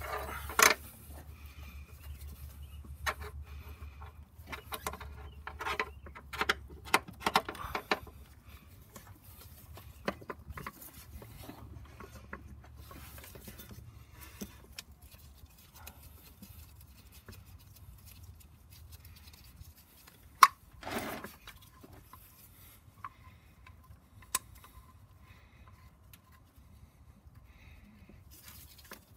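Scattered metallic clicks, taps and knocks of bolts and a bolt-on engine accessory being fitted by hand into a crowded engine bay: a busy run of clicks through the first eight seconds or so, sparser taps after, and one louder knock about twenty seconds in.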